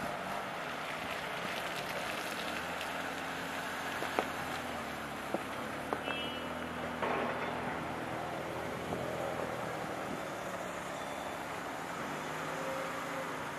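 JCB Loadall 541-70 telehandler's diesel engine running under load as the machine drives and works its boom. A few sharp knocks come about four to six seconds in, and a short rush follows about halfway through.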